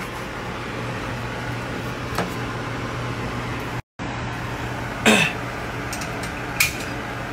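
A steady low mechanical hum of a fan-driven appliance in a kitchen. It breaks off briefly about four seconds in, and there are a few short sharp clicks, the loudest about five seconds in.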